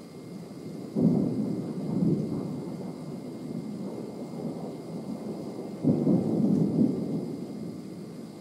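Thunder: two sudden low rumbling claps, one about a second in and a louder one about six seconds in, each rolling on for a second or two before dying away.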